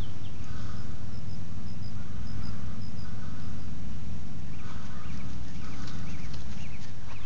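Birds chirping over a loud, steady low rumble: a quick run of short, high notes in the first three seconds or so, then repeated lower chirps from about halfway through.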